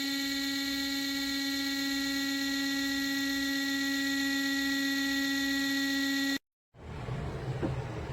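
Steady electric whine of the space heater's small fan motor, which cuts off abruptly near the end; a softer airy hiss with a low hum follows.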